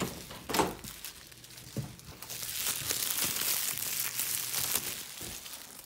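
Clear cellophane shrink-wrap from a DVD case being crumpled in the hand. The dense crinkling builds about two seconds in and fades near the end. A door latch clicks at the start.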